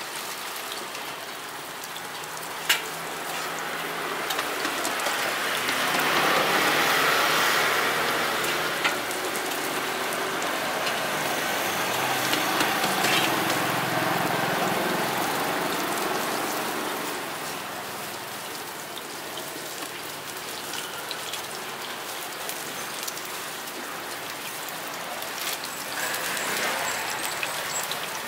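Hot oil sizzling and crackling as scallion bread dough deep-fries, a steady hiss that swells louder twice, around six and again around twelve seconds in. A single sharp click about three seconds in.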